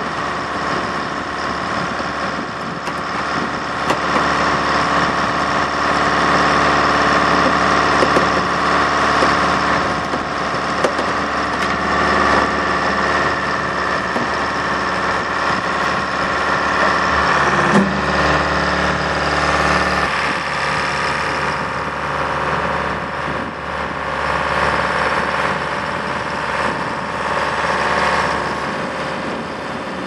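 The logger/baler's Detroit diesel engine running steadily at idle. Its note shifts slightly about eighteen to twenty seconds in.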